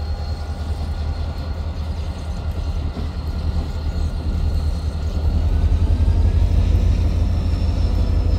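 A deep, steady engine rumble with a faint high whine. The whine rises slightly in pitch about five seconds in, and the sound grows louder.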